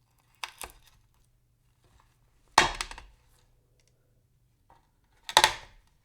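Pills being crushed: three short, gritty crunches. The first is a quick double crack about half a second in, and the louder second and third come about two and a half and five and a half seconds in.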